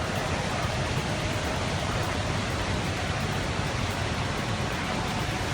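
Fast floodwater rushing, a steady, even noise without breaks.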